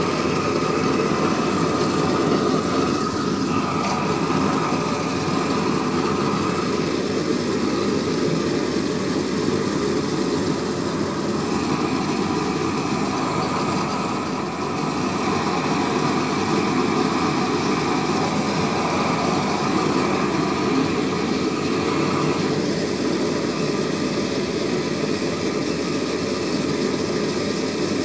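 Propane weed-burner torch burning steadily: a continuous rushing flame noise from the gas burner, dipping slightly about halfway through.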